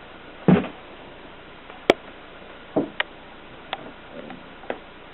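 Adler 7 manual typewriter mechanism giving irregular mechanical clicks and knocks, about seven in five seconds. The loudest is a heavy thud about half a second in, followed by sharp clicks.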